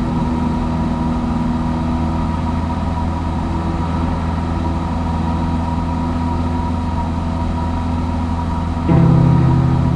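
Steady drone of a Cessna 172's piston engine and propeller heard in the cockpit in flight. About nine seconds in, a louder low hum cuts in suddenly and eases off over about a second.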